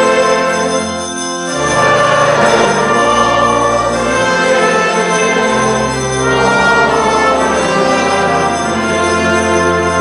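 Brass band of trumpets and tubas playing slow, sustained chords, the bass note changing every second or two.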